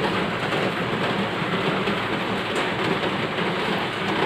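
A steady, even hiss like heavy rain, holding at the same level throughout.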